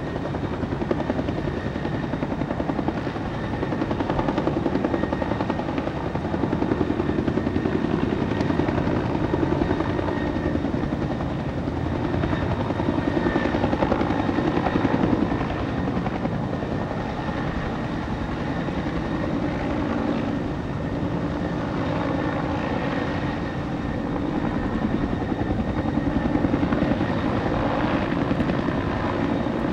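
An engine running steadily, with a fast, even chopping pulse and no pauses.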